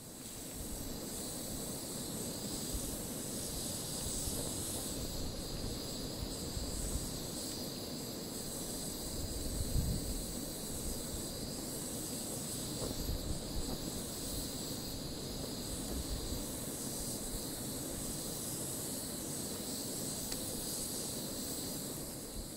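Portable gas camping stove burning under a pot as water heats: a steady hiss over an uneven low roar.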